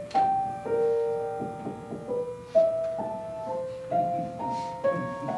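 Solo piano playing an unhurried introduction: single melody notes ringing on over held chords.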